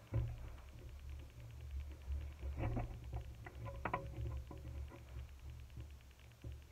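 Low rumble with scattered knocks, clicks and rustles of someone moving about right next to the microphone, over a faint steady ticking.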